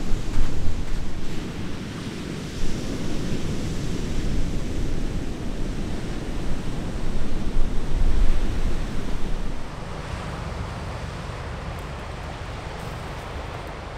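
Wind buffeting the microphone in gusts, over a steady wash of surf. About ten seconds in the gusts drop away, leaving a quieter, even wash.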